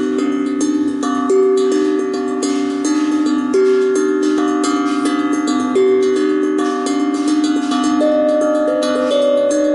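Kosmosky 22 steel tongue drum (glucophone) in a C-minor Pygmy tuning, played with the fingertips: quick runs of strikes on the tongues, the notes ringing on and overlapping. Higher notes come in near the end.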